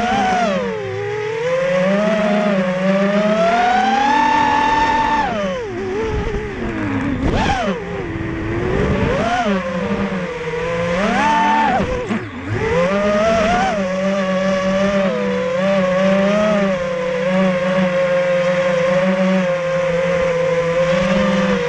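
Racerstar 2205 2300kv brushless motors of a GEPrc X250 FPV quadcopter spinning DAL 5045 bullnose three-blade props, heard from the onboard camera. The whine swoops up and down in pitch with throttle through repeated punches and dives, then holds a fairly steady pitch for the last eight seconds or so.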